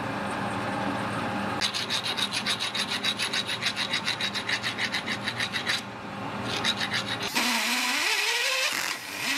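Metal lathe running, then a file rasping in rapid, rhythmic strokes against the bore of a spinning steel disc. Near the end a drill press bites into the steel washer's hole with a continuous cutting noise whose pitch dips and then climbs.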